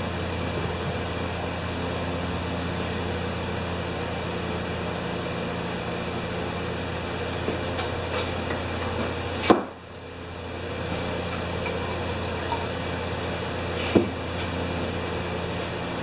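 Steady background hum of the workshop, with two sharp clicks, one about halfway through and one near the end, as the generator's controls are handled and the choke is set. The generator's engine is not running.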